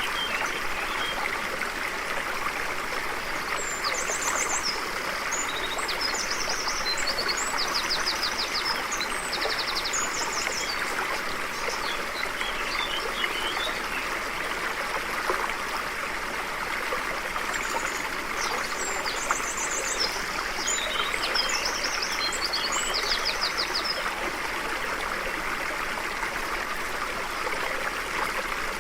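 A stream flowing steadily, with a small songbird singing bursts of rapid high trills and chirps twice: a few seconds in for about seven seconds, and again past the middle.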